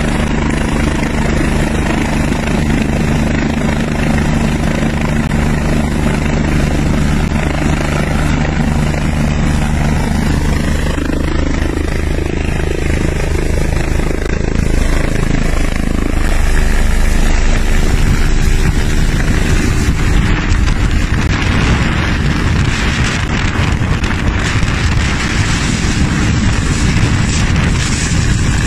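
Twin-turbine Eurocopter EC145 helicopter running close by at hover, a steady blend of rotor and turbine noise. From about two-thirds of the way in it grows louder and rougher as the helicopter hangs directly overhead.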